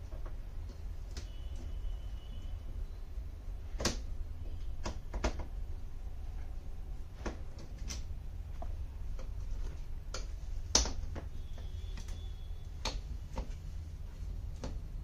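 Scattered sharp clicks and taps of a screwdriver and the metal panel frame as the rusted frame screws are worked loose, with a couple of faint squeaks, over a steady low hum.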